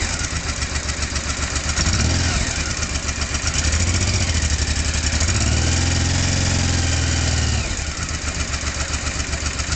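Honda XRV750 Africa Twin V-twin engine with its stock exhaust, idling and revved: a short blip about two seconds in, another around four seconds, then held at higher revs for about two seconds before it drops back to idle near the end. The engine is still cold, and its light ticking is something the owner puts down to the cold.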